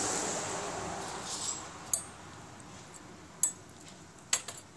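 A few sharp little clicks and clinks, about four in all, from motorcycle headlight wires and a connector being handled and twisted together, over a hiss that fades away in the first two seconds.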